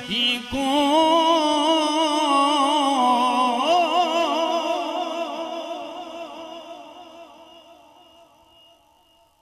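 Male Quran reciter's voice holding one long melodic note of tilawat into a microphone, ornamented with a quick wavering, after a brief break near the start. It then fades away gradually over the last several seconds.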